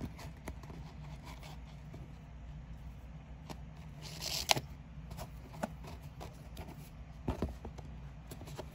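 Stitching thread rasping as it is drawn through the leather at a boot's welt seam, loudest in one short pull about four and a half seconds in. Small clicks and taps of handling and a steady low hum run underneath.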